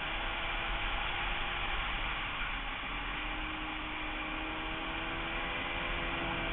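Sport bike engine running at steady cruising revs under the rush of wind on a bike-mounted camera. The engine note eases off briefly about two seconds in, then climbs slowly.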